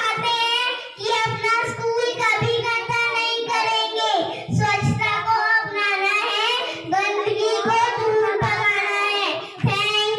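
Young schoolchildren singing a song together in one continuous run of sung phrases, with one girl singing into a microphone.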